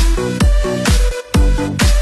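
Electronic dance music with a steady kick drum of about two beats a second and bass notes.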